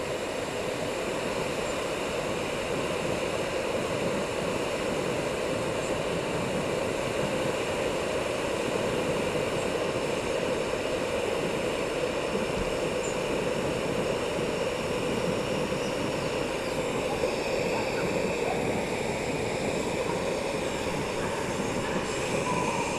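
Jetboil Zip camping stove's gas burner running with a steady hiss, heating water that is not yet at the boil.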